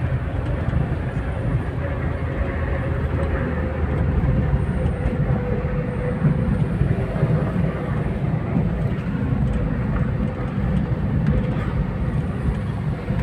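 Steady rumble of motor vehicles driving on a road, engine and road noise together, with a faint steady whine held throughout.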